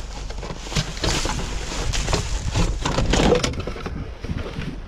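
Rummaging through dumpster trash: bags and loose items rustling, crinkling and knocking irregularly, over a low steady rumble.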